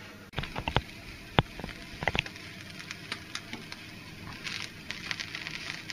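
Bacon strips sizzling and crackling in a frying pan, with a few sharp clicks in the first couple of seconds.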